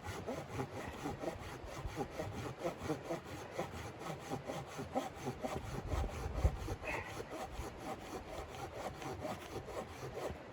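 A saw cutting through wood in steady, rhythmic back-and-forth strokes.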